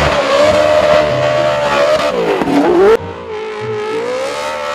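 Drift car's engine revving high, the pitch climbing, dipping about two seconds in and climbing again. About three seconds in it cuts suddenly to a steadier, slightly lower engine note.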